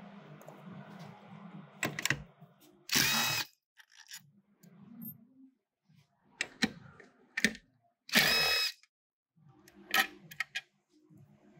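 Panasonic cordless driver with a 10 mm socket running in short spurts as it backs bolts out of a spring balancer's metal housing. It runs steadily for the first couple of seconds, then gives two louder half-second bursts, with sharp clicks of metal parts being handled in between.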